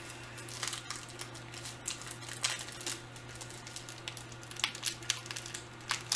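Plastic candy wrapper crinkling with irregular crackles as it is handled and opened, over a faint steady low hum.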